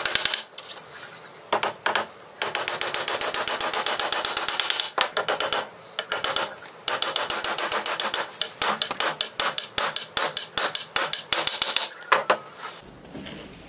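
Small hammer driving thin nails into a wooden batten: quick runs of sharp taps, several a second, with short pauses between runs.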